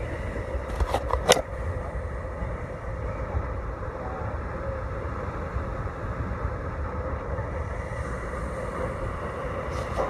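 Steady rushing roar of Seljalandsfoss waterfall at close range, muffled through a phone's waterproof case, with a rough rumble low down. A couple of sharp knocks about a second in.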